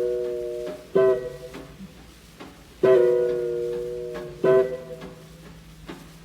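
Swing orchestra on a 1940 78 rpm record playing spaced-out chords: a chord fading from just before, then three more struck about a second, three seconds and four and a half seconds in, each held and dying away, with quiet gaps between.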